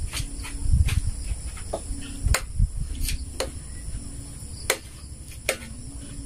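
A spoon clicking and scraping on a ceramic plate as someone eats, about ten sharp clicks spread across the few seconds, with dull low thumps mostly in the first half. A steady high insect trill runs underneath.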